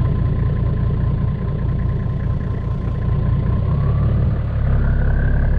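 Ute engine running as it drives across a paddock, picking up revs about three and a half seconds in.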